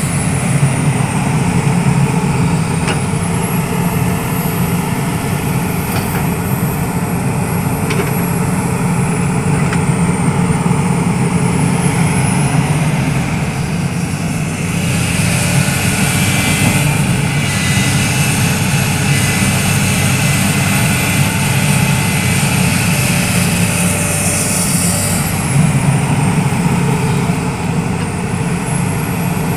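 SANY SY365H Pro excavator's diesel engine running steadily under working load, with a high thin whine that rises and falls several times.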